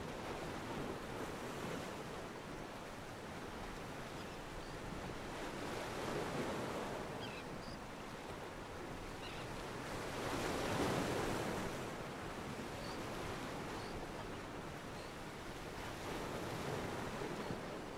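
Ocean water washing against a pier, a steady wash that swells roughly every five seconds, loudest about eleven seconds in.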